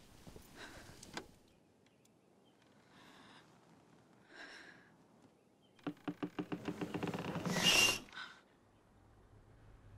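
A woman's shaky breathing and soft gasps, then a rapid rattling run of about ten clicks a second that builds for about two seconds to a loud peak and stops sharply.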